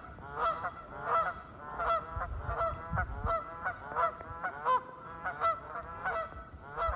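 Canada geese honking, several birds calling over one another at about two honks a second. A brief low rumble sits under the calls about two to three seconds in.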